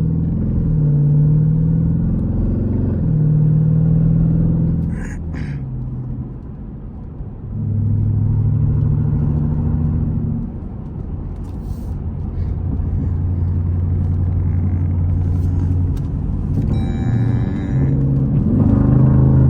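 SRT Jeep's V8 engine running at low revs, heard from inside the cabin, its low rumble rising and falling in level as the vehicle idles and creeps in traffic.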